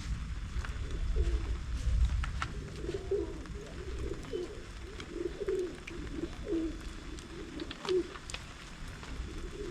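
Doves cooing, a long run of short repeated low coos, over a low rumble that is loudest in the first couple of seconds, with a few sharp clicks.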